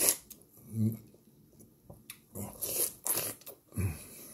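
A person biting into and chewing the soft, very juicy flesh of a ripe Charentais melon, with wet mouth sounds coming in several short bursts.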